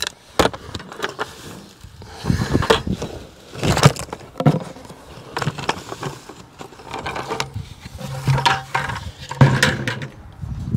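Potting soil poured from a plastic bucket into a fabric-lined hayrack planter: the soil rustles as it slides out, with a series of knocks and scrapes as the bucket is handled against the rack and its liner.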